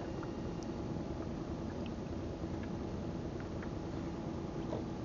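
Small outrigger fishing boat's engine running steadily, a constant hum under a wash of water and wind noise.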